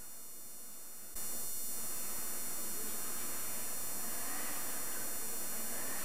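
Steady hiss of old camcorder audio over faint outdoor ambience with distant voices. The hiss jumps up in level about a second in.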